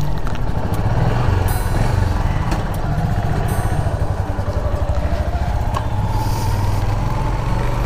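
Motorcycle engine running close to the microphone, a dense low pulsing rumble, with a faint whine that rises slightly in pitch in the second half.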